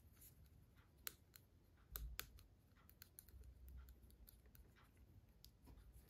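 Faint, scattered clicks and scrapes of a thin metal pin tool and terminal pins being worked in the plastic wiring connector of a ZF 6HP automatic transmission, the sharpest clicks about one and two seconds in.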